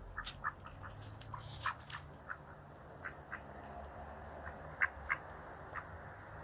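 Mallard ducks and feral pigeons pecking at bread on the ground close to the microphone: a scatter of irregular sharp pecking clicks and taps, thickest in the first few seconds and again near the end, over a low steady city rumble.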